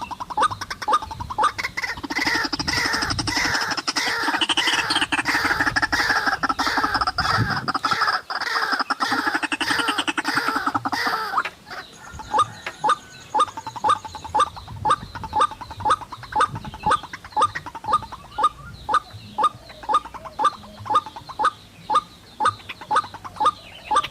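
White-breasted waterhen calls: a loud, chaotic bout of croaking from about two seconds in until near halfway, then a monotonous run of repeated notes at about two a second.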